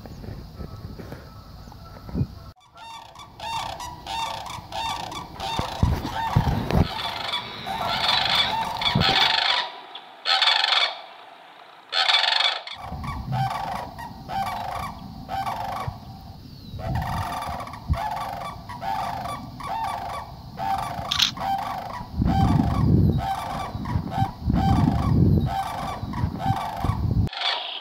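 Canada geese honking over and over, many calls following one another, starting about two and a half seconds in.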